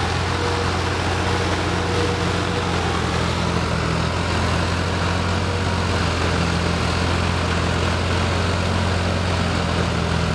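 Farm tractor's diesel engine running steadily, a low even hum with no revving or gear changes.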